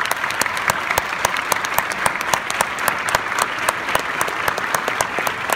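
Audience applauding, a dense, steady clapping with some individual claps standing out.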